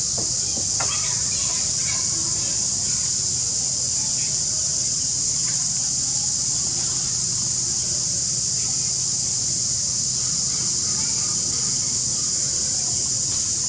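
Steady, high-pitched drone of an insect chorus such as cicadas, unbroken throughout, with a few faint short chirping calls in the first couple of seconds.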